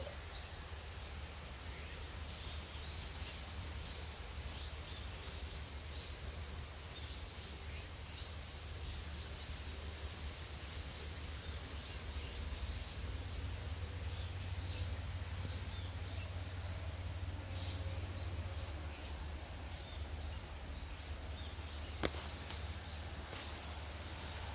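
Outdoor background noise: a steady low rumble with faint, scattered high ticks and one sharp click near the end.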